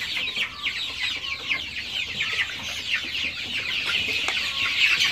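A large flock of young deshi and tiger chicks peeping all at once: a dense, continuous chorus of short, high, falling cheeps.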